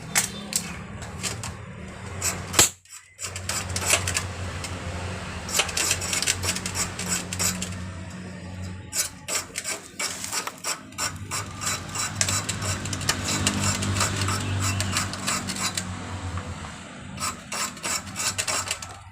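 Many sharp clicks and scraping knocks of hand-tool work, in bunches, over a steady low hum.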